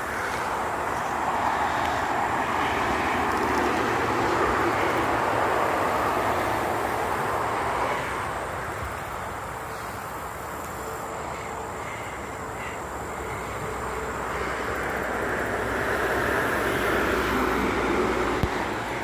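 Steady rushing noise of a vehicle on the move that swells, eases off around the middle and swells again near the end.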